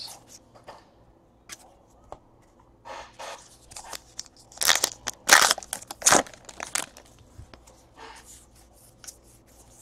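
Trading cards being flipped and slid against one another in the hands: a run of quick papery scrapes and flicks, loudest around the middle.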